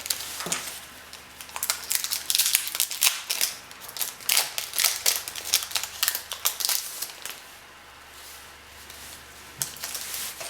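Plastic-foil trading card pack wrapper crinkling and tearing as it is opened, with cards being handled; a dense run of crackles for most of the stretch, easing off near the end with a single click.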